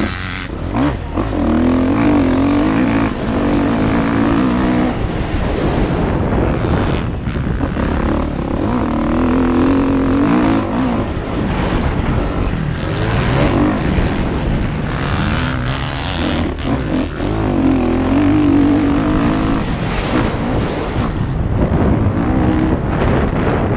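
Motocross dirt bike engine under way on a dirt track, revving hard and backing off over and over as the rider works the throttle through the corners and straights. It is heard from an onboard camera, with a constant rush of noise under the engine.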